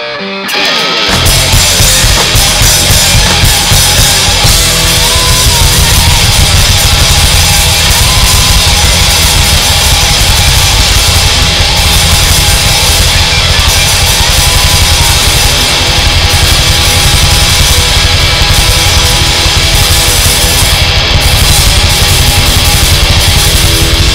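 Live heavy rock band playing loud with distorted electric guitars and a drum kit, with no vocals. After a brief quieter held note at the start, the full band comes back in about a second in and plays on.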